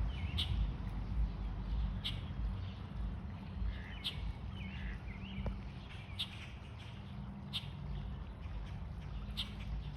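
Birds calling at a feeding spot: short, sharp high chirps every second or two and a few small warbling calls, over a steady low rumble.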